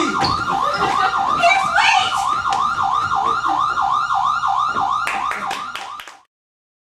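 Emergency-vehicle siren in a fast yelp, its pitch rising and falling about three to four times a second, cut off suddenly about six seconds in.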